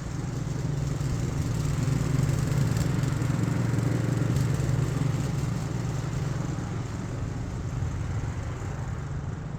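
Remote-control lawnmower's 224cc single-cylinder gasoline engine running steadily, a little louder for a few seconds in the middle.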